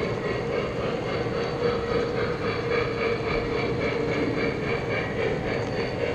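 A model train led by a New York Central GP7 model diesel locomotive running along its track, heard from a car at the rear of the train: a steady rolling rumble and hum that keeps on without a break.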